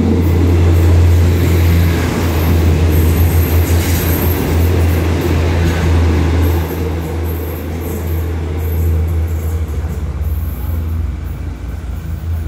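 Diesel railcar train passing close by, its engine and wheels rumbling on the track. The rumble is loudest in the first couple of seconds and eases off as the cars go by.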